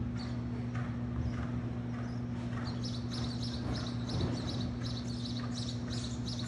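Horse's hoofbeats cantering on soft arena sand, faint and regular, over a steady low hum. From about three seconds in, a quick repeated high chirping joins it.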